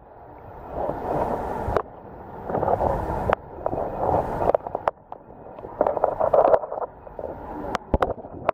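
Stream water heard through a camera held under the surface: a muffled rushing that swells and fades in waves, with several sharp clicks and knocks, most near the end.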